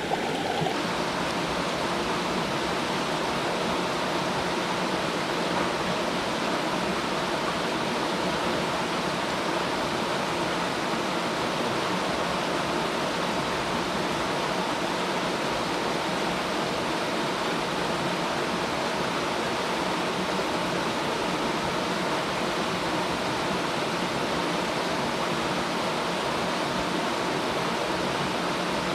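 Waterfall pouring into a pool on a mountain stream: a steady, unbroken rush of falling water.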